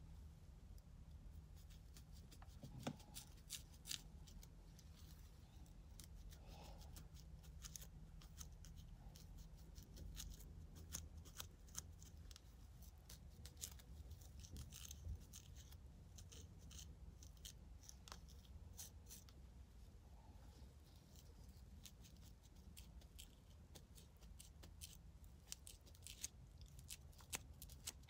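Faint, close dry scratching of a fine-toothed plastic comb scraping through hair and over the scalp to lift dandruff flakes: many small irregular scrapes and clicks over a low steady hum.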